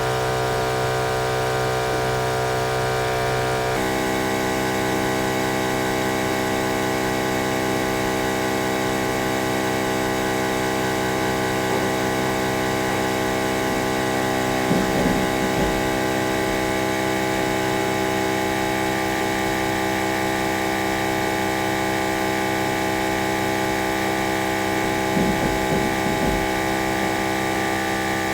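Steady hum of the OM518 Plus LCD separating machine's vacuum pump running, its tone shifting abruptly about four seconds in. Two brief low thumps, around the middle and near the end.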